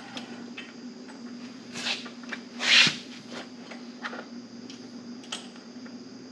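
Small handling noises of hands threading an engine-guard bracket bolt into a threaded hole on a motorcycle engine: a few scattered clicks and short rustles, the loudest a brief rustle about three seconds in, over a steady background hum.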